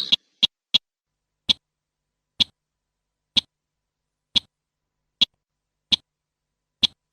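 Slaty-breasted rail giving short, sharp single call notes, a quick few at first and then about one a second, with a harsher rattling call just ending at the start.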